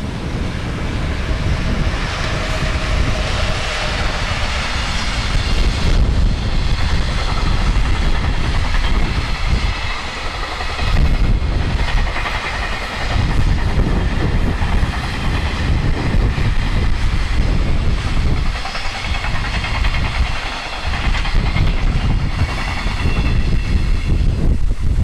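Freight train hauled by an electric locomotive passing on the line, a loud, continuous rolling noise with a heavy low rumble.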